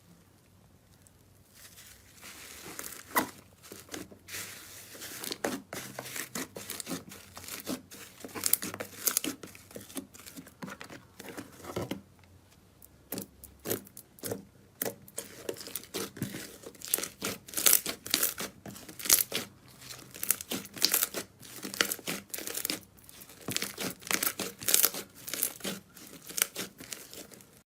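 Slime being handled, giving a fast, irregular run of sticky crackles and pops, with a short lull about halfway through.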